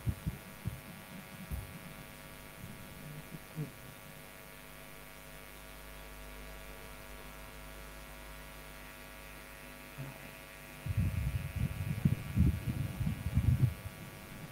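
Steady electrical mains hum, made of many fixed tones, from an open microphone on a video call. For about three seconds near the end there is a stretch of loud, low, irregular thumping and rumbling.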